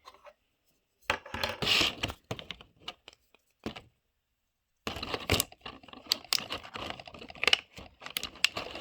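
Small plastic toy pieces and packaging being handled, with irregular clicks, taps and rustling in two stretches, separated by a second of silence near the middle.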